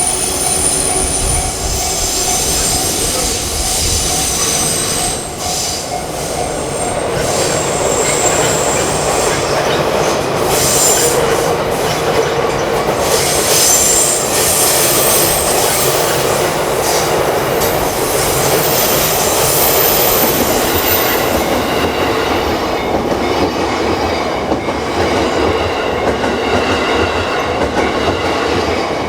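Train passing at close range over a level crossing: a steady rush of wheels on the rails with thin high-pitched squealing, building up about a quarter of the way in and holding to the end.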